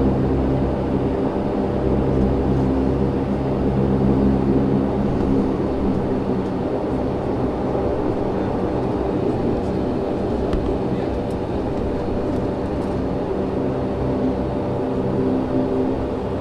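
Turboprop engines of a De Havilland Dash 8-400 airliner heard from inside the passenger cabin, a steady hum of several tones as the plane taxis.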